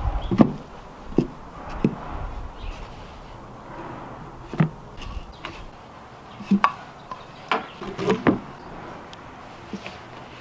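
Wooden geta sandals knocking on wooden boards: about eight sharp, irregularly spaced wooden clacks as they are walked on and stepped out of.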